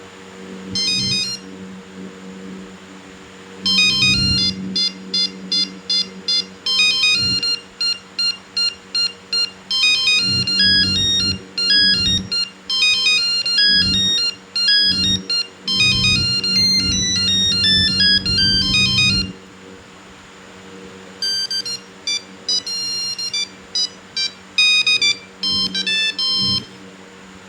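Nokia 1100 monophonic ringtones: quick, evenly struck beeping notes playing a melody. There is a short burst about a second in, a long tune from about four to nineteen seconds, and after a pause another, shorter run, all over a faint steady hum.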